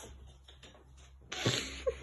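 A kitten pouncing and scampering on a wooden floor: faint scattered taps and scuffles, then a louder scuffle with a thump about a second and a half in.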